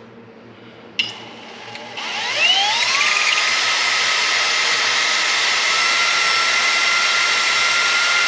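Cordless drill with a 9/64-inch bit drilling out the small steam tube port of an aluminium radiator, to prepare it for tapping. After a click about a second in, the motor whine rises over about a second and then holds steady.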